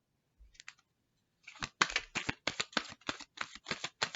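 A tarot deck being shuffled by hand, with a quick, even run of card slaps at about five a second, starting about a second and a half in after a couple of faint clicks.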